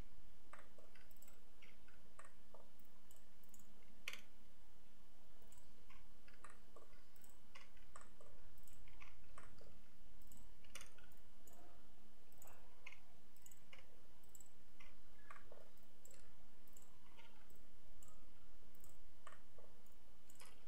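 Computer mouse clicking at irregular intervals, sometimes several clicks close together, over a steady faint electrical hum.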